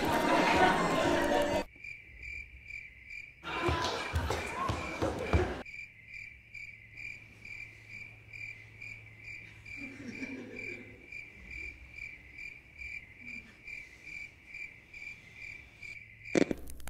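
Cricket-like chirping: one high chirp repeating evenly about two and a half times a second over a low steady hum. It follows the tail of music, is broken by a louder burst of mixed noise about four seconds in, and stops with a sharp click near the end.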